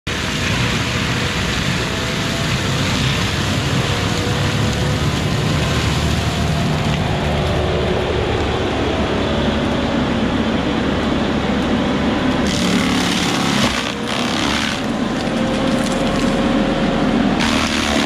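Kubota SVL95 compact track loader's diesel engine running under load, driving a Promac HSM60 drum mulcher that spins with a faint wavering whine. In the last few seconds, spells of a harsher hiss come in as the drum grinds into brush and deadfall.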